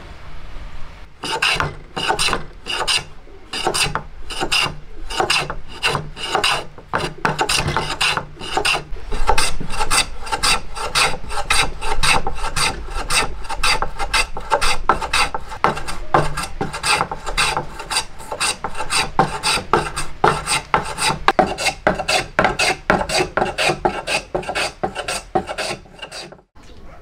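Small wooden hand plane shaving the corner joint of a hardwood frame in short, quick rasping strokes, about two to three a second. The strokes begin about a second in and stop abruptly just before the end.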